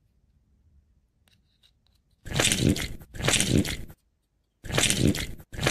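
Soft pink modelling clay squished and pressed by hand into a plastic mould, in four pushes of just under a second each, the first about two seconds in.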